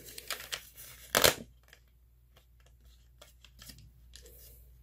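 Cardstock paper purse being handled: paper rustling and rubbing in the first second or so, with one sharp, loud crackle about a second in, then a few faint clicks and rustles.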